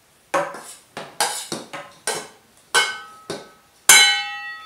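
Metal kitchenware knocking: a stainless steel tray and its spoon are tapped about eight times as the flour and cocoa mix is shaken out into the mixer bowl. The last and loudest knock, about four seconds in, rings on with a clear metallic tone.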